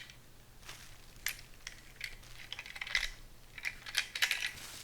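Irregular light clicks and taps of small hard plastic parts being handled, from a handheld phone stabilizer kit, with a quick cluster of clicks near the end.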